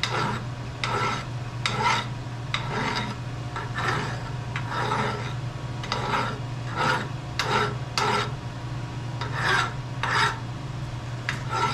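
Hand file strokes scraping across a metal machine handle, repeated roughly one to two times a second, over a steady low hum.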